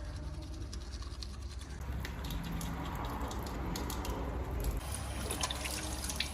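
Teeth being brushed with a toothbrush: a run of quick, short brushing strokes.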